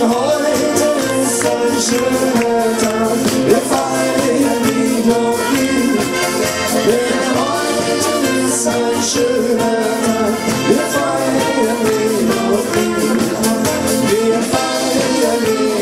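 Live band playing upbeat party music with a steady beat.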